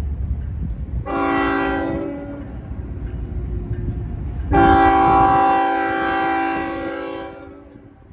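Locomotive multi-chime air horn sounding a chord: one short blast about a second in, then a longer, louder blast starting past the halfway point, over the low rumble of the passing train. The rumble drops away during the long blast, and the horn fades out near the end.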